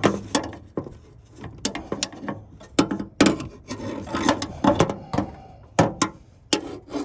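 Irregular clicks, knocks and scraping of hands working a gas lift strut's end fitting and its spring retaining clip onto the ball stud of a metal truck toolbox.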